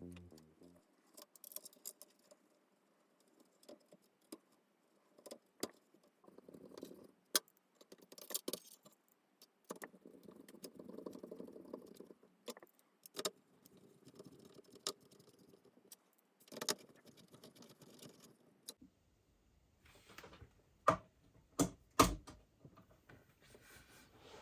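Scattered sharp clicks and light rattling of small hard parts being handled while working on a VHS/DVD recorder, with a few louder clicks near the end.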